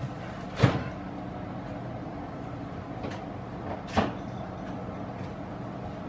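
Refrigerator's top freezer door being opened and things handled inside: two sharp knocks about three seconds apart over a faint steady hum.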